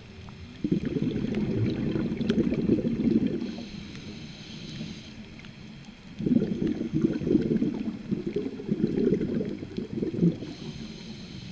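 Scuba diver breathing through a regulator underwater: two long bursts of bubbling exhaled air, each followed by the hiss of an inhale, the second one starting near the end.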